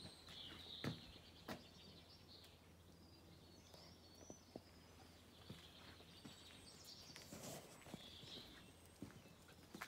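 Faint birdsong over quiet rural background noise, with a couple of sharp clicks about a second in.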